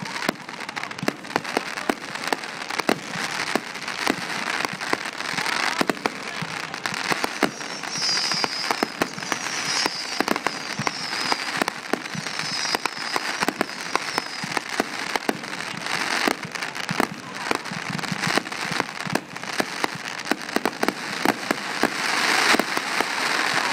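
Fireworks display going off continuously: a steady crackle with many sharp bangs, and a run of short, high, falling whistles in the middle.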